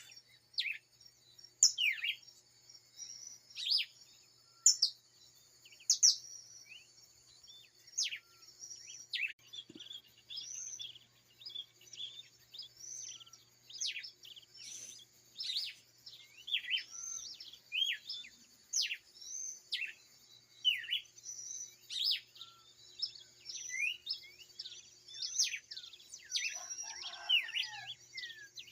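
Dawn chorus of birds: many short, high chirps and whistles, thickening after about ten seconds, over a steady high buzz, with a few lower calls near the end.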